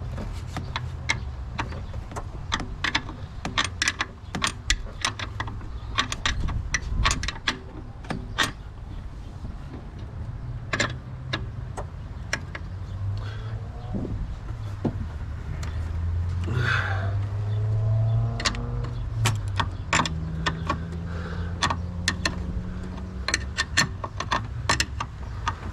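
A wrench working a bolt under a truck's hood: many short metallic clicks and clinks at an uneven pace, over a steady low hum.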